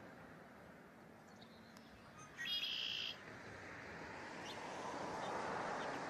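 A single short, buzzy bird call about two and a half seconds in, over steady outdoor background noise that grows louder near the end.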